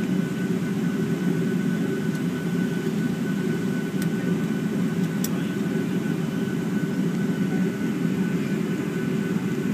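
Airliner cabin noise: the steady drone of the engines and air heard from inside the passenger cabin, with a faint steady high whine.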